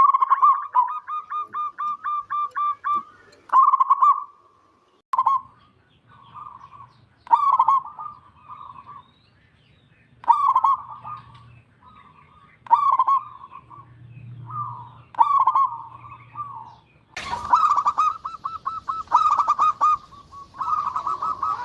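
Zebra dove (perkutut) singing: repeated staccato cooing phrases, opening with a fast pulsed run of about four notes a second, then separate phrases every two to three seconds, growing louder and denser near the end.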